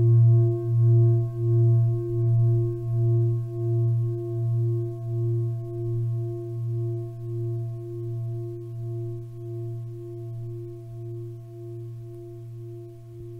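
A singing bowl ringing out after a strike, a low hum with a few higher tones that wobble in a steady slow pulse and fade gradually.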